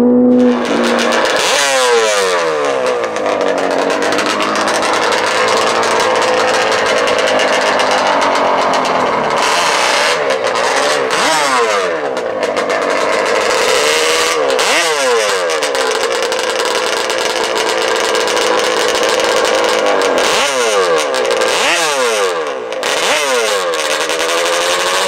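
A high-revving drag-racing engine at the starting line, revved in about ten sharp blips bunched in clusters, each rev falling straight back to a steady idle.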